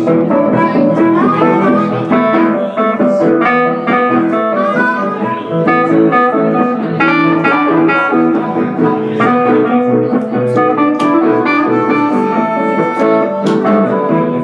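Live instrumental break of a slow country-blues song: electric guitar, harmonica and a Nord Stage 3 keyboard playing together without vocals.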